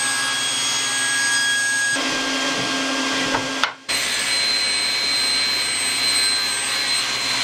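Table saw running while a crosscut sled is pushed through the blade, cutting off the sled's wooden sacrificial fence. The steady saw noise drops out briefly just before four seconds in, then carries on.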